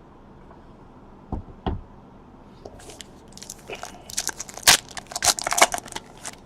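Two dull thumps, then plastic and paper packaging crinkling and tearing with sharp crackles as a box of trading cards is opened.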